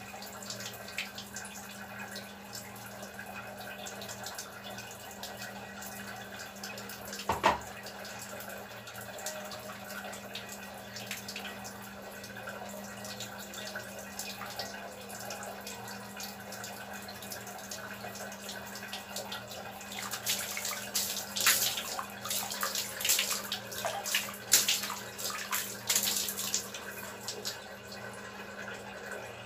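Water splashing and dripping as a person bathes, with louder splashing from about twenty to twenty-seven seconds in. A single sharp knock comes about seven seconds in, over a steady low hum.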